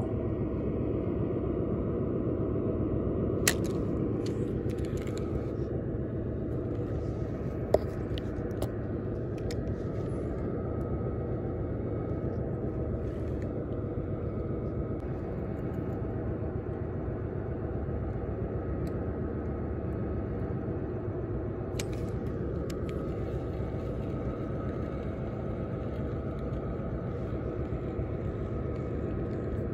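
Steady low rumble with a faint hum, with two sharp clicks in the first eight seconds or so.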